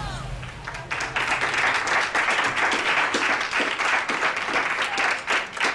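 A song's last notes fade out, then from about a second in a group of people applauds steadily.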